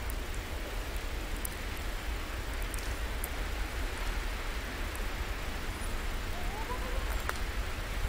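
Wind on the microphone of a camera out in a snowstorm: a steady low rumble under an even hiss, with a few faint ticks.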